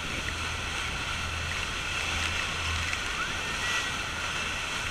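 Steady rushing of wind, spray and churning water aboard a tour boat close to a large waterfall, with wind buffeting the microphone and a low steady hum underneath.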